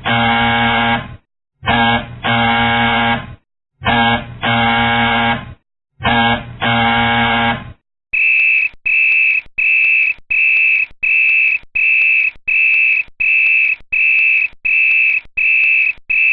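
Warning sound effects: a harsh electronic buzzer sounding in a short-then-long double buzz, repeating about every two seconds. About eight seconds in it changes to a high-pitched electronic beep repeating just under twice a second.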